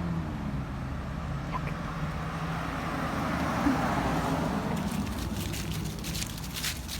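A steady low rumble that swells and fades, then from about five seconds in, footsteps crunching through dry fallen leaves.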